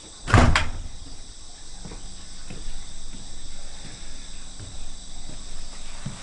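Steady high chirring of an insect chorus. About half a second in, a wooden cabin door shuts with one loud thump, and a few faint knocks follow.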